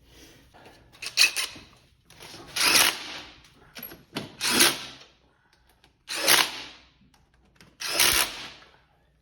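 Handheld power driver run in five short bursts, each about a second long, driving in the bolts that hold the plate back on.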